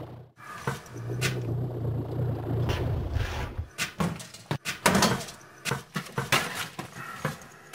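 A steady low machine hum cuts out briefly near the start, returns, and stops about four seconds in. A run of sharp knocks, clatters and short rushing noises follows, the loudest about five seconds in.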